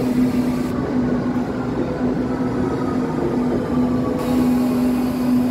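Berlin U-Bahn U8 train moving along the underground station platform: steady train running noise with a constant hum.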